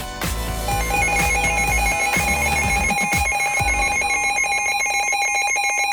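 Electronic alert tone warbling rapidly between two pitches, starting just under a second in, while music underneath fades out.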